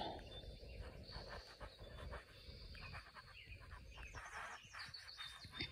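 Quiet, with the faint rustle of a hand rubbing a tabby cat's head and fur, and faint bird chirps near the end.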